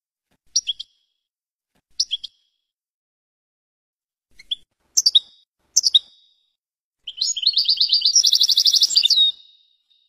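European goldfinch singing: a few short high chirps spaced a second or so apart, then a fast trilled run of notes lasting about two seconds near the end.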